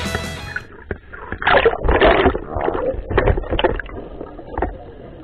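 Water sloshing and bubbling in irregular gushes as the camera goes underwater, with air bubbles streaming around a diver's helmet. Rock music cuts off about half a second in.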